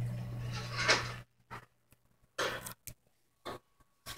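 A steady low hum cuts off suddenly just over a second in. After that, a handheld phone rubs and bumps against bedding in a few short rustling scrapes, with near silence between them.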